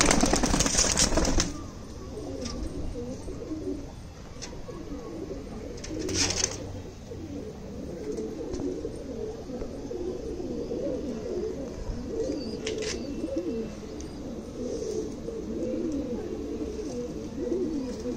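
Domestic pigeons cooing: many overlapping low, wavering coos from a loft full of birds. A loud rustling burst comes in the first second and a half, a smaller one about six seconds in, and a click near thirteen seconds.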